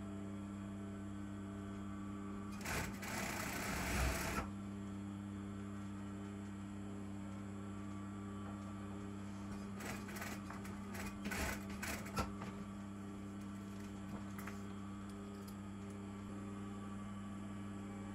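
Industrial lockstitch sewing machine stitching satin fabric in two short runs, one about three seconds in and another from about ten to twelve seconds in, over a steady hum.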